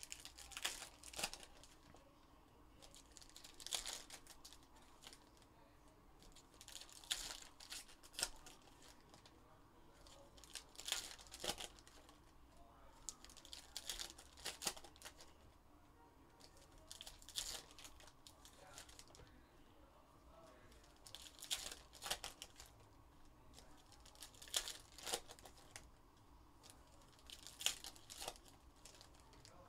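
Foil trading-card packs being torn open and crinkled by hand, in short bursts of crackly tearing about every three to four seconds.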